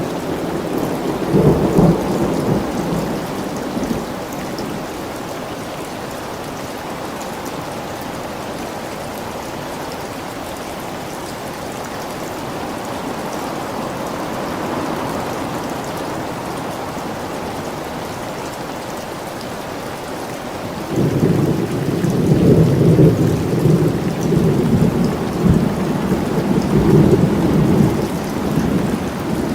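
Steady rain with rolling thunder: a rumble of thunder near the start, then a longer stretch of rumbling from about two-thirds of the way through to the end.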